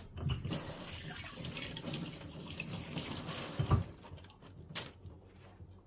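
Water running from a kitchen tap into the sink for about three and a half seconds, ending with a knock as it stops.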